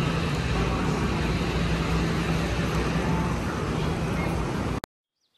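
Steady background din, a dense hiss with a low hum under it, that cuts off abruptly near the end.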